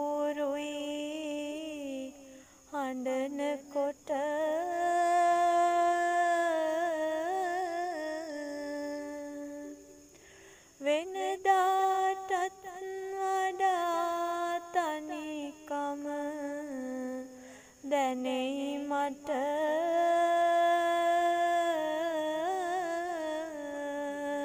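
A lone voice humming a slow, wordless melody without accompaniment, in long held notes that waver. It breaks off briefly between phrases about every eight seconds.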